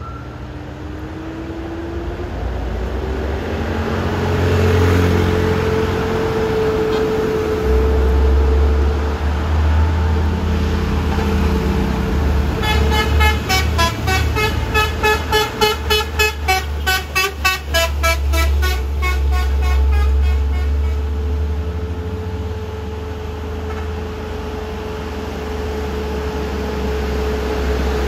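Heavy diesel truck's engine running low and steady as it climbs. From about halfway through, a vehicle horn sounds for several seconds in a quick series of short toots, two to three a second.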